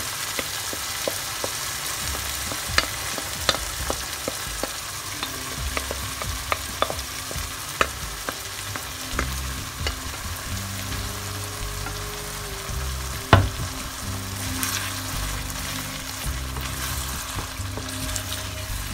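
Butter chicken gravy and chicken pieces sizzling in a nonstick frying pan while a wooden spatula scrapes the sauce out of a bowl and stirs it, with scattered light taps of the spatula throughout. One sharper knock about 13 seconds in.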